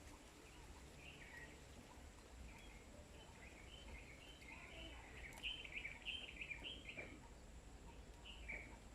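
Small birds chirping in a quick run of short, high twittering calls, busiest in the middle, faint over a steady background hiss.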